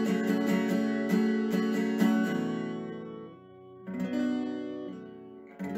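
Acoustic guitar background music: quick picked notes for about the first two seconds, then two chords strummed and left to ring out.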